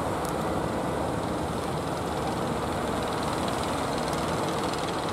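Engine of a wooden fishing boat running steadily as the boat moves under way.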